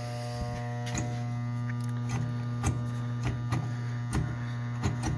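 Furnace blower motor buzzing with a steady electrical hum. It is powered but not turning: the motor is trying to run and is stalled on a tight, seized shaft. A few light clicks sound over the hum.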